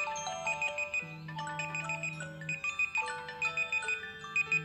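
Several smartphone alarm and timer tones sounding at once: overlapping melodic ringtone notes stepping up and down, with a high beep repeating in quick groups over them.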